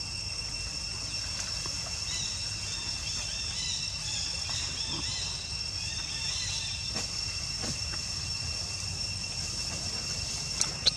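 Insects droning steadily in several high, unchanging tones over a low rumble. Faint wavering chirps run over the drone from about two to six seconds in, and a sharp click comes near the end.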